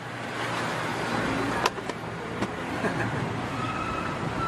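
Steady street traffic noise with a car going by, a sharp metallic click about a second and a half in and a few lighter clicks after it.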